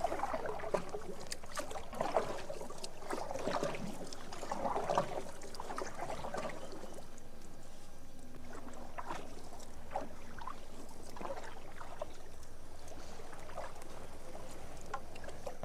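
Oars dipping and swishing through the river water as a small wooden rowboat is rowed, with scattered light knocks. The strokes are louder and more frequent in the first five seconds, then thin out.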